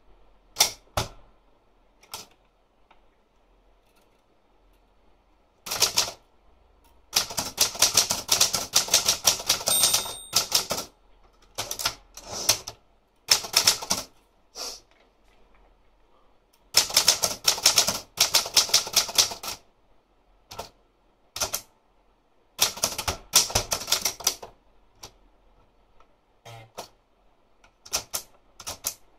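Olympia Traveller De Luxe manual portable typewriter being typed on: runs of quick, sharp key strikes separated by pauses of a few seconds.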